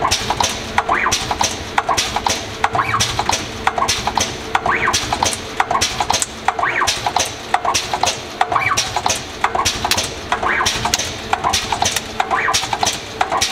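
Automatic double-sided battery-pack spot welding machine running its weld cycle: rapid sharp clicks and snaps as the servo-driven needle-electrode heads step along the cell jig and press and fire, in clusters repeating about every two seconds over a faint steady hum.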